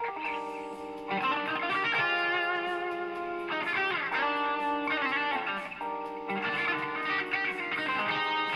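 Les Paul-style electric guitar played through an amp: held chords and notes changing about once a second, with a few sliding notes about halfway through.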